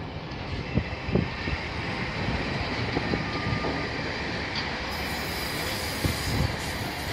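Container freight train's loaded wagons rolling past close by. A steady noise of wheels on rail is broken by irregular knocks as the wheels cross rail joints, with a thin high squeal from the wheels.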